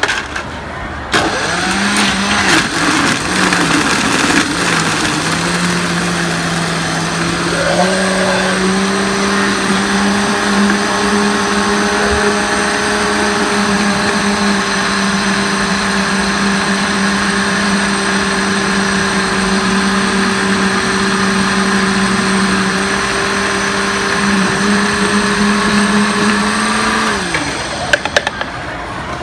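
Countertop blender motor crushing ice and fruit into a slushie. It starts about a second in, its pitch rough and wavering for several seconds as the ice breaks up. It then rises and holds a steady whine once the mix has turned smooth, and winds down with a falling pitch near the end, followed by a few clicks as the jar is lifted off the base.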